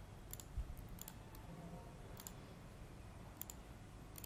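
A few faint computer mouse clicks spread through, with a soft low bump about half a second in.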